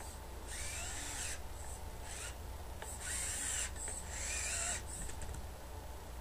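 Electric motor and gears of a small RC crawler truck whining in about four short bursts as the throttle is blipped, the pitch rising and falling within each burst.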